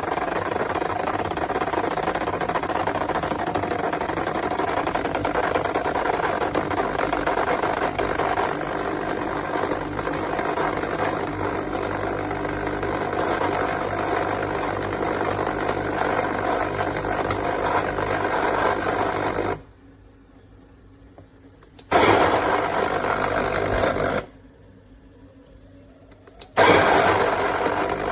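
Wilfa Svart Aroma 130-watt conical burr coffee grinder running, its motor and burrs grinding beans steadily for about twenty seconds before it cuts off. It then runs twice more in short bursts of about two seconds each.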